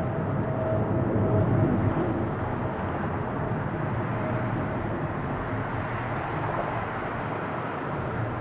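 ANA Boeing 777's twin jet engines at takeoff power as the airliner climbs away: a steady jet roar, loudest about a second or two in, then slowly fading.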